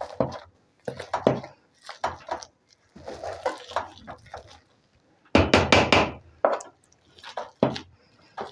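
Wooden spoon stirring thick mashed potatoes in an aluminium pot, scraping and knocking against the pot about once a second. There is a louder run of quick strokes a little past the middle.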